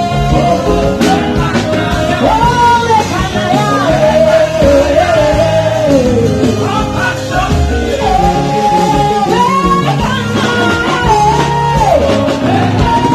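Live gospel praise music: a lead voice singing held, gliding notes over a loud full band with bass guitar and drums.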